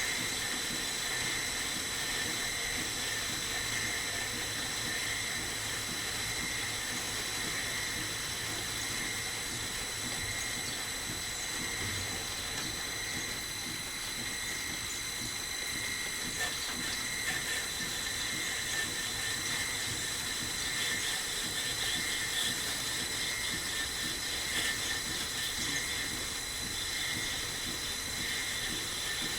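Metal lathe running with a steady high-pitched whine. A faint scratchy cutting noise joins in from about halfway through as the tool works the ball-turning cut.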